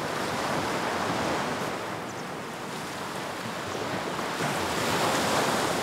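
Ocean surf washing onto a sandy beach: a steady rush of waves that swells about a second in and again near the end.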